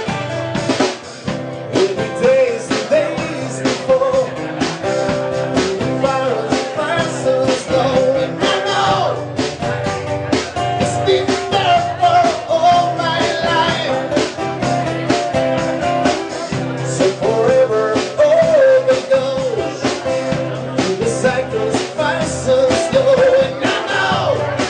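Live rock band playing: a man singing into a microphone over strummed acoustic guitars and a drum kit.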